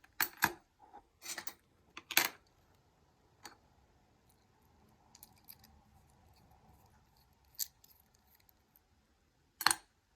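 Small metal clicks and clinks from a picked challenge lock being taken apart by hand to remove its back cap: several sharp taps in the first two seconds, a few single ones later, and the loudest clink near the end.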